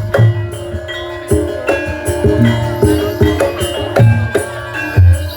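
Javanese barongan accompaniment music: repeated drum strikes over held, ringing metallic tones, with rattling jingles.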